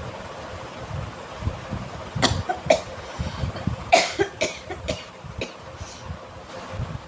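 A person sneezing several times in quick succession, the sneezes set off by a cotton bud tickling the nose. There are about six short, sharp bursts between about two and five and a half seconds in.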